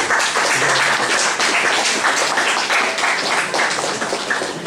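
Audience applauding: many people clapping at once, easing off slightly near the end.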